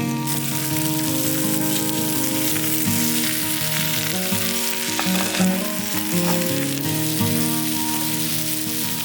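A steady sizzling hiss, like food frying, under background music with a melody that steps from note to note.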